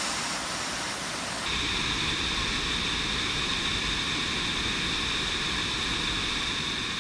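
Waterfall pouring into a plunge pool: a steady rush of falling water. About a second and a half in it changes abruptly to a closer, fuller rush.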